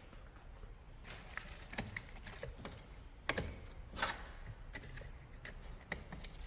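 Irregular small metallic clicks and taps from hand tools and battery hardware being handled during a car battery replacement, with a sharp click about three seconds in and a brief scrape just after.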